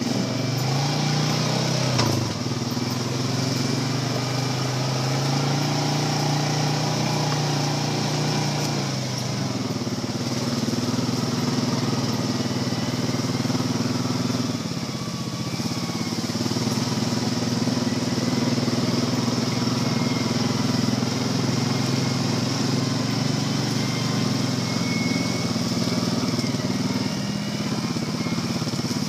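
Quad ATV engines running as they ride along a dirt trail, the engine note shifting up and down with the throttle and easing off briefly about halfway through.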